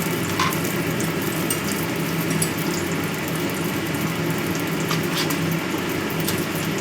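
Steak sizzling in a frying pan: a steady hiss with scattered small crackles, over a steady low hum.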